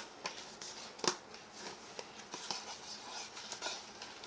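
Soft clicks and squelches of sticky foam slime being squeezed and pulled in the hands, with one sharper click about a second in.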